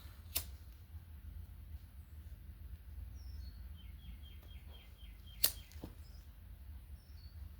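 Two sharp clicks a few seconds apart over a faint low hum, with a quick run of short high chirps between them.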